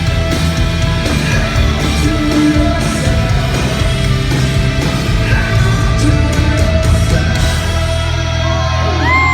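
Rock band playing live: loud distorted electric guitars, bass and drums, with a low chord held steady near the end.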